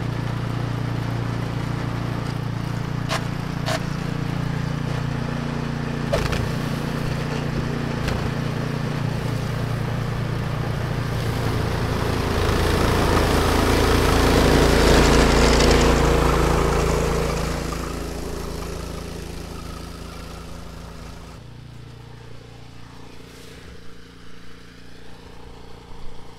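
Gas engine of a Troy-Bilt Storm Tracker 2890 tracked snowblower running steadily as it blows snow. It grows louder toward the middle as the machine passes close, then fades.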